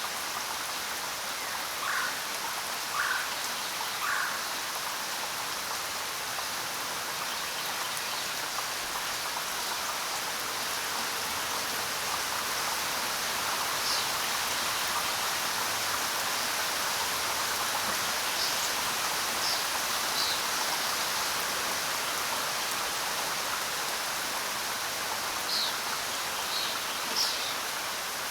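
Steady rain falling on the ground, an even hiss. A few short chirps stand out: three in the first few seconds, and several higher ones in the second half.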